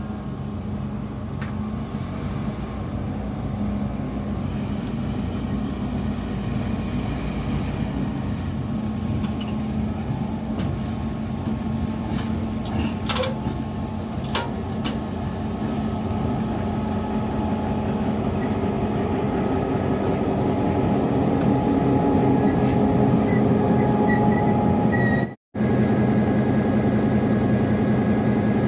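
EMD GP38-2 diesel locomotive's engine running steadily, growing louder through the second half. Two sharp clicks come about halfway through, and the sound cuts out for an instant near the end.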